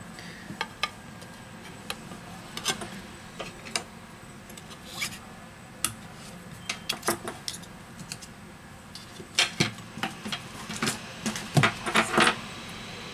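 Light clicks and clinks from handling an opened smartphone's parts and metal tweezers on a silicone repair mat. The taps are scattered, with a cluster of louder clicks near the end.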